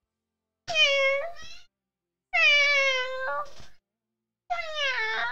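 Domestic cat meowing three times in long calls of about a second each, evenly spaced, each falling slightly in pitch.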